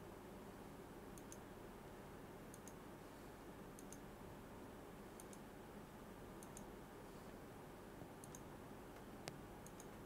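Faint key clicks on a CNC control panel keypad, coming in quick pairs about once every second and a half, with one sharper click near the end, over a low steady hum.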